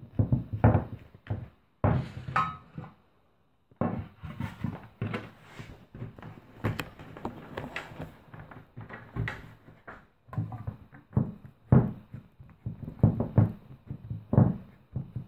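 Hands pressing and patting bread dough into a metal loaf tin: an irregular run of dull thumps and knocks, broken by a silent gap of about a second near three seconds in.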